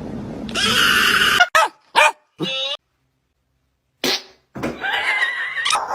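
A dog's short barks and yips, several separate calls with falling pitch, broken by abrupt cuts and about a second of silence in the middle.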